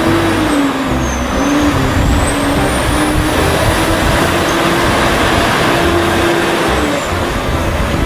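Large multi-axle Terex all-terrain mobile crane driving along a road. Its diesel engine runs steadily under a wavering engine note, with heavy road and tyre noise and a faint high whine that rises and falls.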